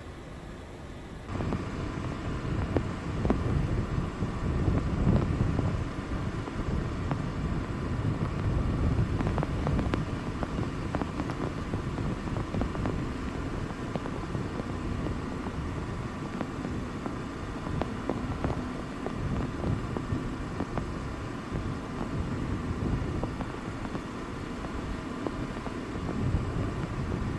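Gusty wind buffeting the microphone with a low steady rumble and a faint steady whine, starting suddenly about a second in.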